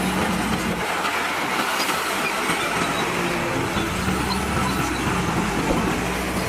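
Steady, loud din of heavy construction machinery: several engines of trucks and earthmoving machines running at once, with no single sound standing out.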